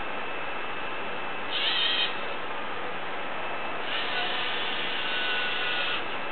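LEGO Mindstorms NXT robot arm's electric servo motors whining as the arm moves: a short whine about a second and a half in, then a longer one of about two seconds near the end, over a steady hiss.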